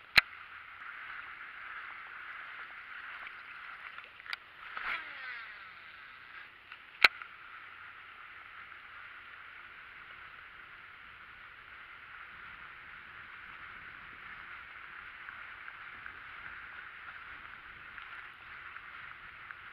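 Buzzbait being retrieved across the surface of a pond, its spinning blade churning and gurgling the water steadily. Two sharp clicks stand out, one right at the start and one about seven seconds in.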